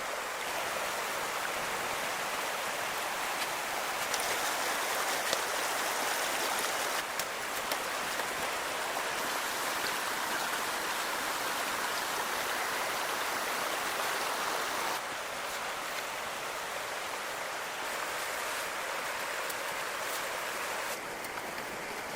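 Steady rush of running water, like a stream, with a few faint clicks; the level shifts slightly a few times.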